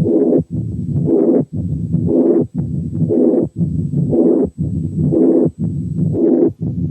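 Recorded heart sounds heard through a stethoscope bell at the mitral area, beating about once a second: a pansystolic murmur and a mid-diastolic murmur with every beat, the sign of combined mitral stenosis and mitral incompetence.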